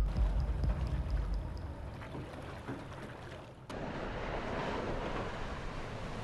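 Fast military boat running at speed across open water, its hull throwing up a steady rush of water and spray over a low engine rumble. About three and a half seconds in, the sound cuts to a louder, hissing wash of spray.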